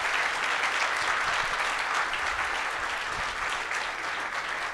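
Audience applauding, a steady clapping that eases off slightly toward the end.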